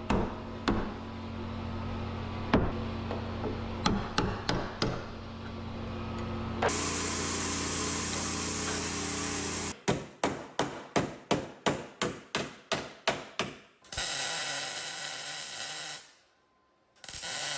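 Auto body repair tool sounds in quick succession: scattered knocks over a steady machine hum, a few seconds of hissing tool noise, then a run of about a dozen evenly spaced strikes, about three a second, and a short burst of hiss that cuts off suddenly.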